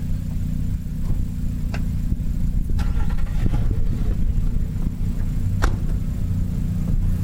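2015 Nissan Frontier Pro-4X's V6 engine idling with the truck stopped, a steady low rumble, with a few sharp clicks or knocks now and then.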